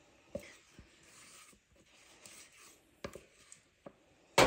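A spatula scraping thick cream cheese mixture and dropping it in dollops onto cake batter, with a few light clicks of the utensil and one sharp knock near the end.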